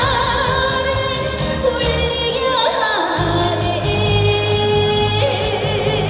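Female trot singer singing live over a backing track, holding long notes with a wavering vibrato.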